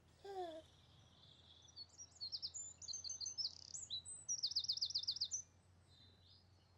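Birdsong: a run of high, quick chirps, ending in a fast trill of about eight repeated notes. At the very start there is one short pitched call that slides down in pitch.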